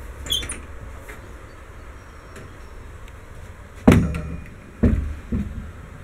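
A short squeak about a third of a second in, then three dull thumps, the first about four seconds in and the other two about a second and half a second after it, inside the trailer's small rooms.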